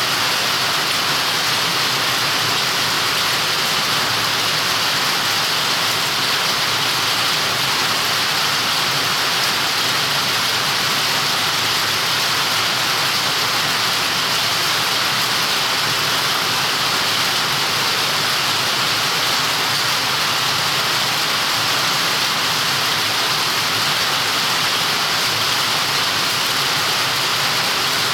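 Heavy rain falling steadily, an even hiss that keeps up without a break.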